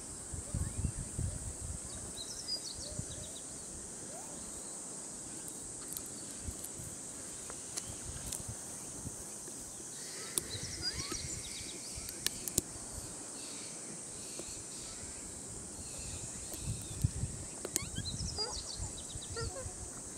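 Outdoor ambience: a steady high-pitched hiss, with short high chirps a few times and low rumbling near the start and end.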